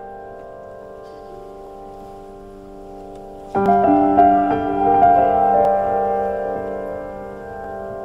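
Background piano music: soft held notes, then a louder chord struck about three and a half seconds in that rings out and slowly fades.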